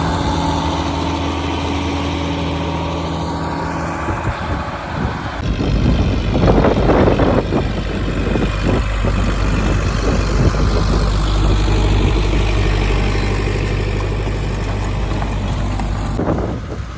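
Vintage tractor engine running steadily. About five seconds in the sound changes to a louder, rougher low rumble, and the steady engine note returns later.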